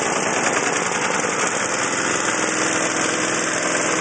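Small engine of an old single-stage snowblower running steadily just after a pull start, with a fast even firing beat; it runs smooth.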